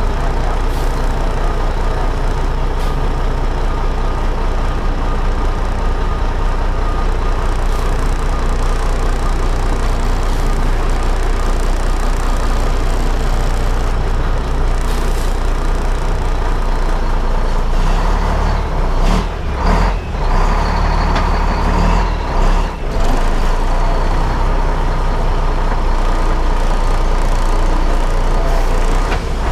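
Heavy truck engine running steadily at low speed, with a few short sharp noises about two-thirds of the way through.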